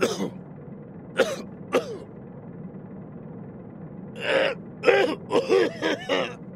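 An elderly man's short wordless vocal noises: a few single ones spaced about a second apart near the start, then a longer one and a quick run of short ones about four seconds in, over a steady low hum.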